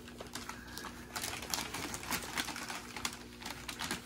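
A brown paper gift bag rustling and crinkling faintly in short, scattered bursts as a small dog pushes its head into it.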